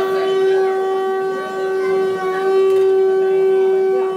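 One long held note blown on a small wind instrument or whistle, steady in pitch and unbroken.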